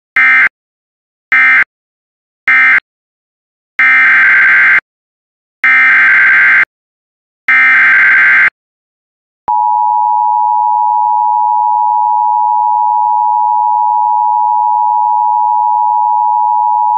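Emergency Alert System data tones and attention signal. First come three short end-of-message bursts of warbling data tones, then three roughly one-second header bursts that open the next alert. About nine and a half seconds in, the steady two-tone attention signal (853 and 960 Hz) starts.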